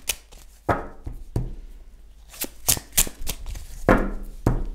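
A deck of oracle cards being shuffled by hand: a string of sharp, irregularly spaced card slaps and short rustling riffles.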